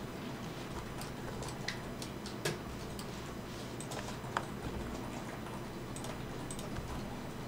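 Scattered sharp clicks from a computer mouse and keyboard, a few a second at most, over a steady low hum of room and equipment noise.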